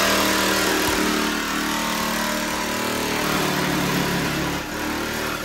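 The Mazdaspeed MX-5's turbocharged four-cylinder engine running steadily at a constant speed.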